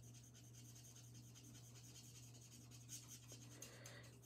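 Faint scratching and rubbing of a Stampin' Blends alcohol marker tip stroked over cardstock while blending colour, over a steady low hum.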